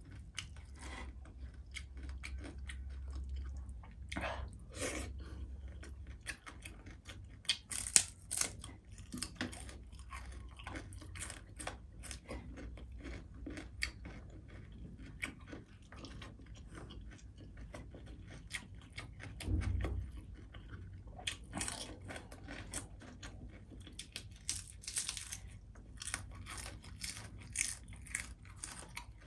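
Close-miked mouth sounds of a person chewing a mouthful of crispy fried tilapia: irregular wet smacks and small crunches. The sounds come thickest about eight seconds in and again near the end, with a low thump about two-thirds of the way through.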